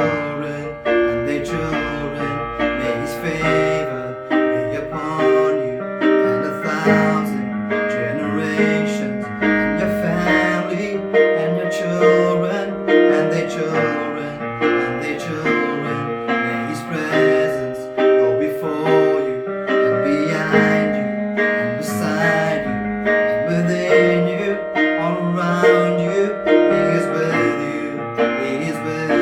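Worship song music led by a piano-toned keyboard, sustained chords under a moving melody.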